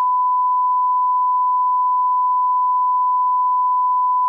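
Steady 1 kHz reference test tone of the kind played with SMPTE colour bars: a single pure pitch, held constant without a break.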